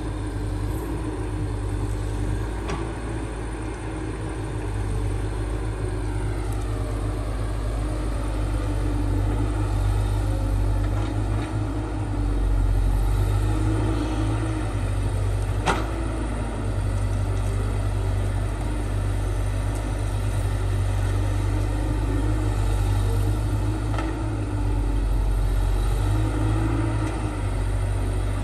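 Diesel engine of a heavy earthmoving machine (bulldozer or excavator) running steadily under load with a low rumble. A few sharp knocks come through it, the loudest about halfway through.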